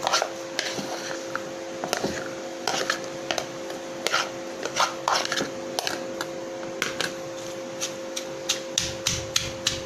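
Mortar and pestle pounding and grinding spice paste with lemongrass: irregular knocks and scrapes, coming faster near the end. A steady low hum runs underneath.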